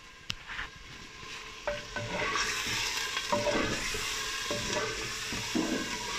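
Chicken, tomatoes and spices sizzling in hot oil in a clay handi while a wooden spatula stirs and scrapes against the pot over high heat. The sizzle grows louder about two seconds in as the stirring gets going, with scrapes every second or so.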